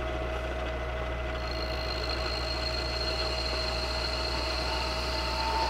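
Milling machine running at about 700 RPM, its 14 mm high-speed-steel end mill taking a dry cut in cast iron. A steady hum and a steady mid tone, joined about a second and a half in by a high thin whine and near the end by another tone as it grows a little louder.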